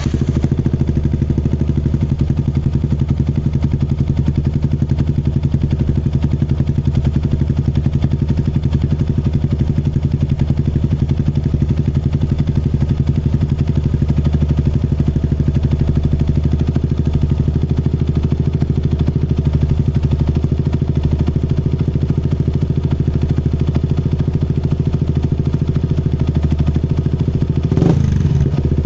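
Yamaha R15's single-cylinder four-stroke engine idling steadily through an aftermarket Lone Rider exhaust, then revved briefly near the end.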